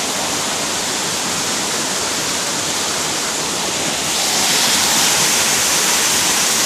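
Steady rush of river water tumbling over rocks, getting a little louder about four seconds in.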